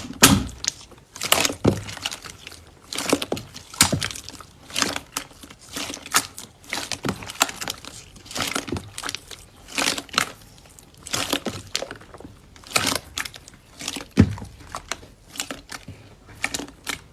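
Hands squeezing and pressing slime, making a steady run of sticky crackles and pops in clusters about once a second.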